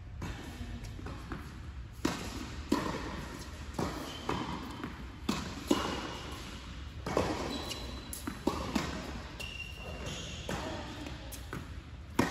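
Tennis rally in an indoor court hall: sharp pops of the ball off the racquet strings and off the hard court, coming roughly every second, each followed by a short echo from the hall.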